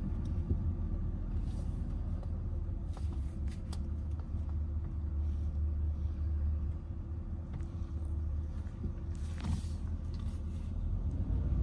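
Inside a car's cabin while it drives slowly: a steady low rumble of engine and road noise, with a faint steady hum above it and a few light clicks.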